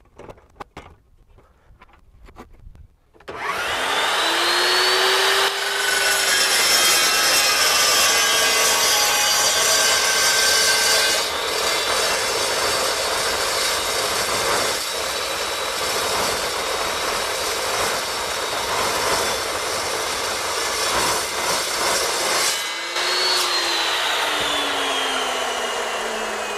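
A few clicks as the steel is clamped, then the Evolution S355 14-inch cold-cut saw's motor whines up to speed. Its slow-turning blade cuts through 3/8-inch steel angle for about seventeen seconds, the motor's pitch lower under the load of the cut. Near the end the motor picks up speed as the cut finishes, then winds down with a falling whine.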